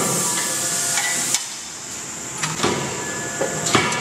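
A 50 kJ CNC die-forging hammer working a connecting-rod forging: a steady hiss stops about a second and a half in, then a few sharp metallic blows ring out, the loudest near the end.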